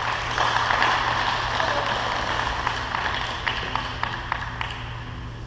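Scattered clapping and a murmur of voices in a large hall after a badminton rally, loudest in the first couple of seconds and dying down.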